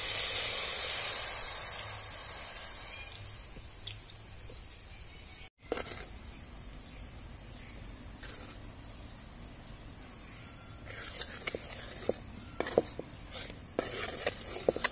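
Water poured into a hot aluminium pan of jaggery hisses loudly, fading away over about two seconds. Later the jaggery syrup bubbles in the pan while a ladle stirs it, with a run of sharp clicks and scrapes of metal on the pan near the end.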